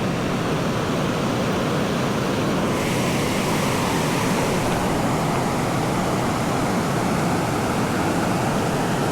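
Steady rushing of a trout stream's water, a loud even hiss that turns brighter about three seconds in.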